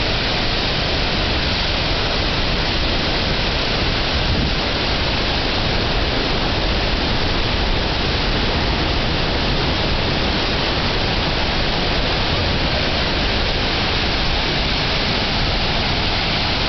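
A large waterfall plunging into a pool: a steady, even rush of falling water.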